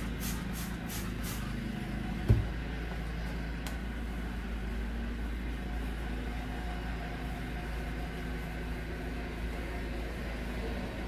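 Hand trigger spray bottle spritzing a cabinet door in quick short sprays, about three a second, stopping after about a second and a half. A single loud thump follows a little after two seconds, with a low steady hum underneath throughout.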